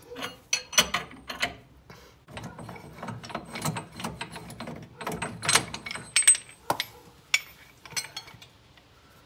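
Metal clicking in irregular runs as the screw of a C-frame ball joint press is turned back to release the pressure, then separate metal knocks as the press is pulled off the lower control arm.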